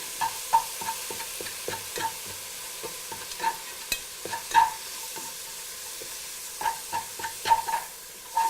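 Ground turkey sautéing in oil in a pan, with a steady sizzle, while a utensil stirs and breaks up the meat, knocking and scraping against the pan many times at an uneven pace, more often near the end.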